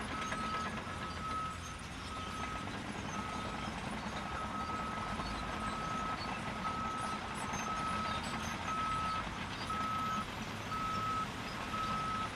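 Heavy vehicle's reversing alarm: a single-pitch beep repeating evenly about one and a half times a second, over a low diesel engine rumble.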